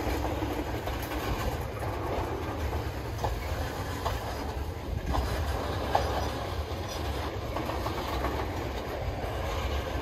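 Freight train of tank cars rolling slowly past: a steady low rumble with a few brief metallic squeaks and clicks from the wheels on the rails.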